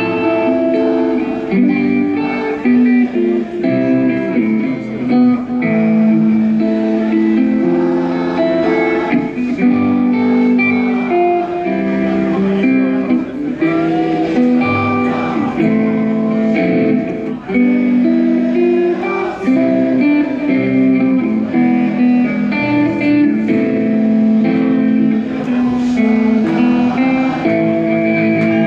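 Double-neck electric guitar played solo through a stage amplifier: a melodic line of held notes and chords, with a few bent notes.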